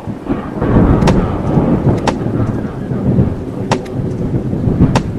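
Thunderstorm sound effect: thunder rumbling over rain, with four sharp cracks standing out at irregular intervals.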